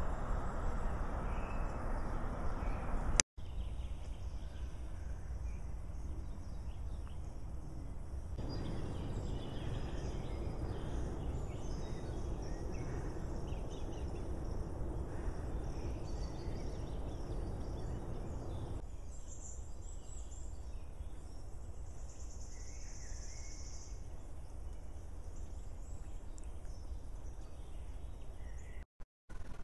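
Steady outdoor background noise: a low rumble and hiss, with a few faint bird calls now and then. The sound cuts out for an instant twice, with a click at the first break.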